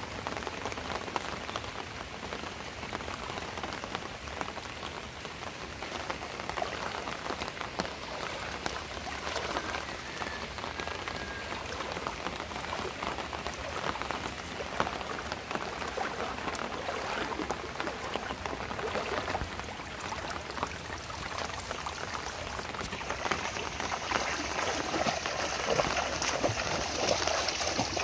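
Steady rain falling on standing floodwater: a dense, even hiss of many small drop impacts, growing a little louder near the end.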